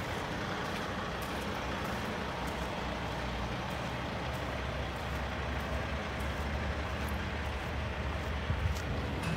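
Semi truck's diesel engine running at a low, steady idle while the tractor-trailer backs slowly.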